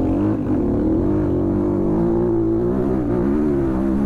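Dirt bike engine running under throttle while riding, its pitch wavering up and down a little as the throttle shifts.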